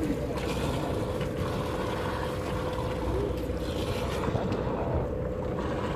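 A sportfishing boat's engine running steadily, a low drone with a constant hum, with wind on the microphone.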